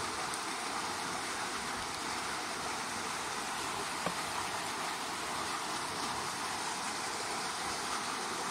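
River water flowing steadily, an even rushing hiss with no pitch, with a single short click about four seconds in.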